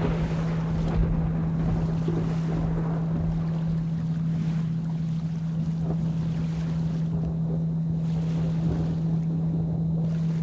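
A steady 165 Hz binaural-beat tone held over a continuous wash of rain, with a low rumble of thunder underneath.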